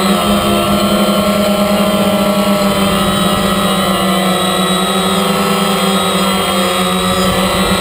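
DJI Phantom quadcopter's electric motors and propellers whining steadily, recorded up close by the GoPro mounted on the drone, with slight wavers in pitch.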